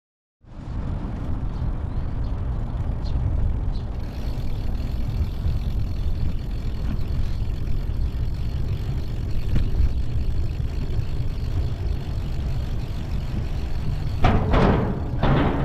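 Steady low wind rumble on the microphone of a moving bicycle, starting abruptly about half a second in, with two louder rushes near the end.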